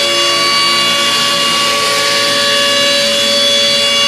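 DATRON high-speed CNC milling spindle cutting aluminium with a small end mill: a steady whine of several high tones over the hiss of the cut.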